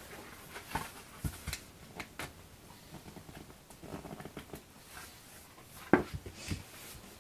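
Scattered light clicks and taps of hands handling small parts while fitting hinges to a balsa model airplane, with one sharper knock about six seconds in.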